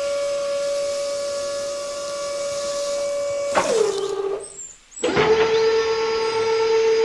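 Small electric motor whining at a steady high pitch. About three and a half seconds in it winds down in pitch to a stop, then starts again a second later and runs on at a slightly lower pitch.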